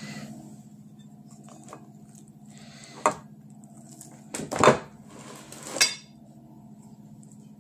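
A metal spoon and a bowl of banana pudding clinking and knocking against each other and the table: three knocks, the loudest and longest about halfway through, over a steady low hum.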